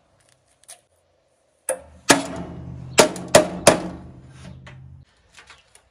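Claw hammer striking the sheet-metal cabinet of a refrigerated air dryer five times in about two seconds. The metal panel rings after the blows, and the ringing dies away about a second after the last strike.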